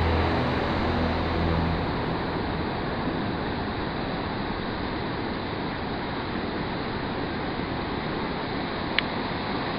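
Ocean surf breaking, a steady rushing noise with wind on the microphone. A music track dies away about two seconds in, and a single sharp click comes near the end.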